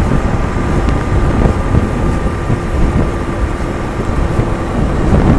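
Wind rushing and buffeting over the microphone of a motorcycle cruising at highway speed, about 75–80 km/h, with the engine's steady hum underneath.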